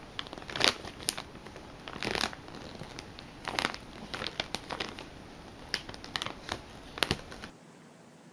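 Irregular scratchy rustling and crackling, with short sharp crackles at uneven intervals, like something being handled or crumpled. It stops abruptly about seven and a half seconds in.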